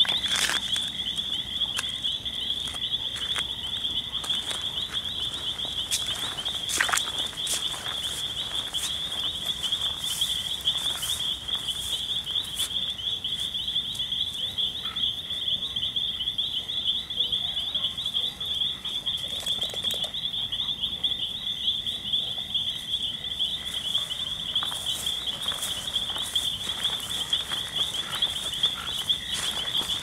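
Night chorus of crickets and frogs: a steady, continuous high pulsing trill throughout, with a fainter lower call that stops about three quarters of the way through. Scattered light footsteps and rustling through gravel and grass come over it.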